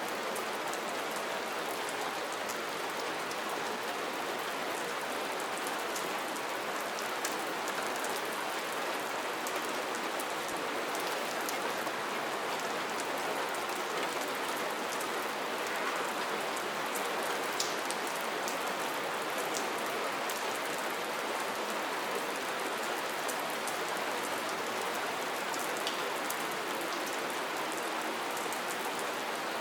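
Steady rain falling, an even hiss with many fine drops pattering on a surface.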